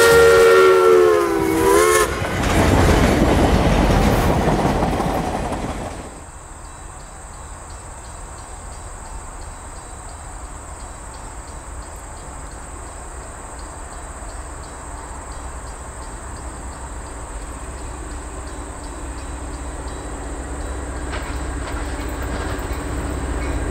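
U.S. Sugar 148 steam locomotive's whistle sounding a chord that sags and stops about two seconds in, followed by the loud noise of the locomotive and its cars going past. About six seconds in it cuts sharply to quieter trackside sound with a thin steady high tone and the low rumble of a distant Metra diesel passenger train slowly growing as it approaches.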